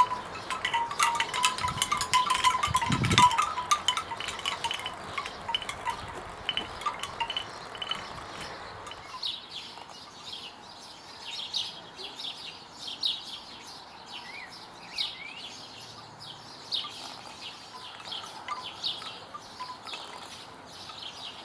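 Bamboo wind chime, its hollow tubes knocking together in the breeze in a dense clatter for about the first nine seconds, with a couple of dull thumps around two and three seconds in. After that the knocks come only now and then while birds chirp.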